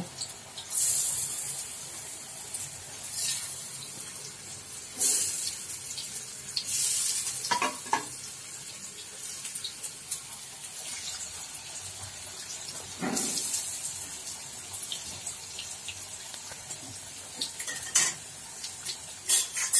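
Hot oil sizzling steadily as palak vadi slices fry on an oiled griddle and in a pan of deep-frying oil, swelling into louder bursts of sizzle every few seconds as fresh pieces go in. A few short clinks of utensils come through.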